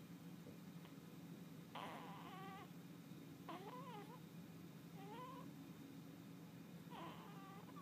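Newborn baby's faint squeaky whimpers while asleep: four short high squeals that bend up and down in pitch, a second or two apart, over a low steady hum.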